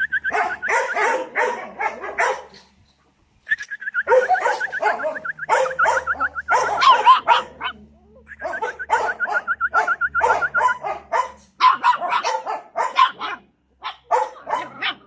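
A litter of Belgian Malinois puppies yapping and barking, many short high yelps overlapping in a busy chorus, with a brief lull about three seconds in.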